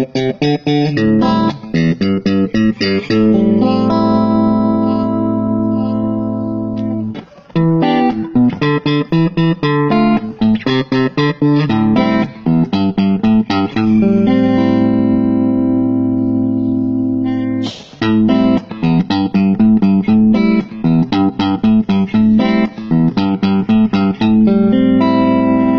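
Stratocaster-style electric guitar played on a clean tone: a single-note melody of quick picked runs alternating with long held notes that ring for several seconds. It breaks off briefly about seven and eighteen seconds in.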